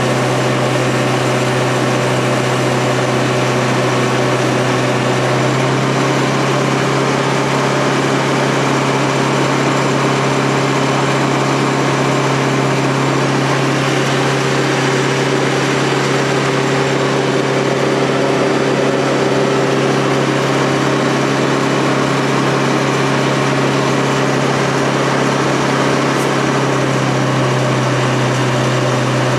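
Fire pump engine running steadily under load, a constant drone, over the hiss of a water jet from a hose nozzle. The tone changes slightly about six seconds in and again near the end.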